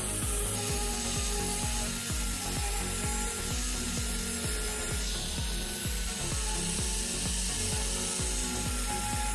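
Angle grinder with a sanding disc running steadily, its disc rubbing over the rusty steel of a sword blade to strip the rust. A steady high whine runs under the rough rubbing, with rapid low knocks throughout.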